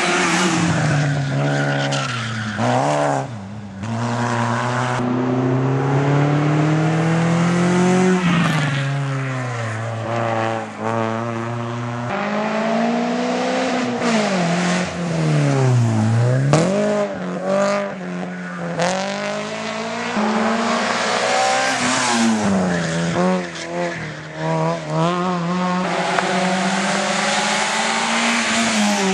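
Hill-climb race cars accelerating hard up a mountain road one after another, their engines revving up through the gears, with pitch climbing and dropping back at each gear change.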